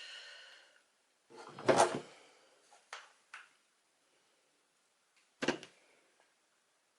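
Knocks and clicks of small tools and parts being handled on a workbench during connector crimping: a loud knock about two seconds in, two light clicks around three seconds, and a sharp knock past five seconds.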